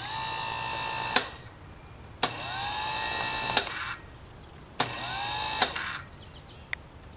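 Lawn tractor electric starter motor, its brushes just replaced, run free off a jump-starter power pack. It spins up three times with a rising whine that settles, each run a second or so long and ending in a snap as the lead is let go. It is a pretty weak starter.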